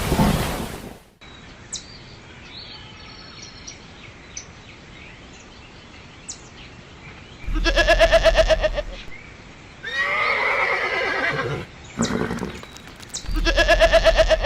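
Rain noise cuts off about a second in. After a stretch of faint background chirps come animal calls: a loud, shaking, pitched call, a different call that bends in pitch, then a second shaking call like the first.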